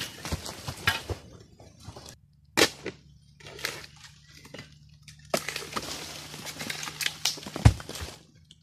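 Dry oil palm fronds rustling and crackling in irregular bursts while they are cut and pulled with a long harvesting pole, with one heavy thud near the end.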